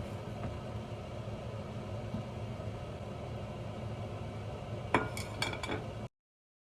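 Steady low room noise, then a short cluster of clinks of cutlery against a dish about five seconds in; the sound cuts off suddenly about a second later.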